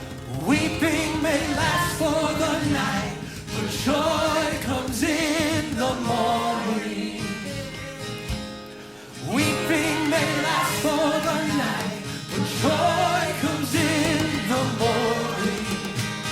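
Worship music: a voice sings long, wavering notes over band accompaniment, in two phrases with a brief quieter lull about halfway through.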